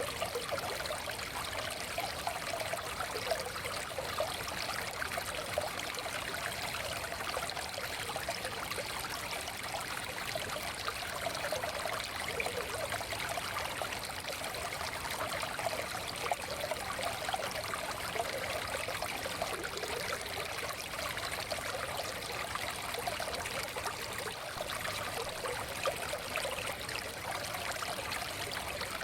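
A shallow forest stream flowing and trickling over stones, a steady babble with fine splashing detail and no change in its flow.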